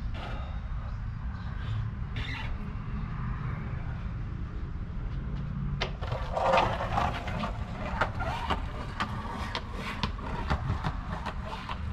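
Skateboard set down and ridden on concrete: irregular sharp clicks and knocks from the board and wheels starting about six seconds in, over a steady low rumble.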